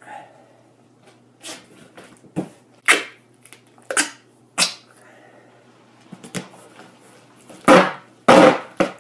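Duct tape being pulled off the roll and torn in strips while a cardboard box is taped shut: a series of short rips, the loudest few near the end.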